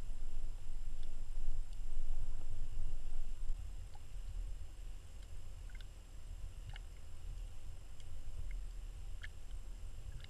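Underwater ambience: a low, muffled rumble of moving water, louder for the first few seconds and then quieter, with scattered faint clicks and ticks and a faint steady high whine.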